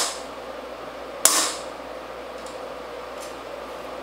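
Claw hammer striking the metal safety pin into a mini trampoline's leg bracket: one sharp strike a little over a second in, then two faint taps.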